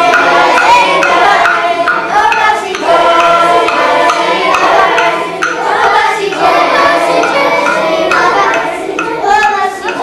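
A choir of primary school children singing a song together.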